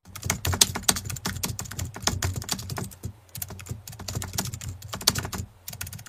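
Computer keyboard typing sound effect: fast, irregular keystrokes, the sound of on-screen text being typed out.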